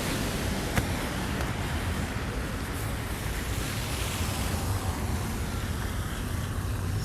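Steady city street noise of passing traffic with wind on the microphone, and a single sharp click about a second in.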